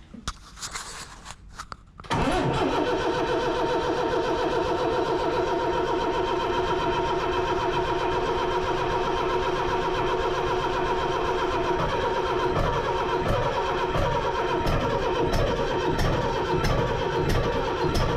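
Gardner 6LXB six-cylinder marine diesel engine being started: a few light clicks, then about two seconds in it comes in suddenly, loud and steady, and keeps going, its tone wavering from about twelve seconds on.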